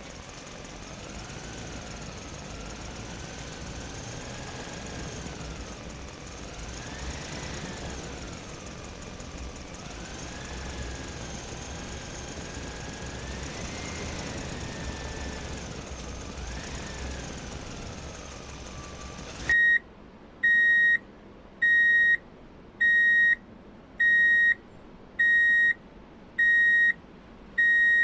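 Truck engine running, with a whine that rises and falls. About two-thirds of the way through it gives way to a reversing alarm beeping steadily, about one beep a second.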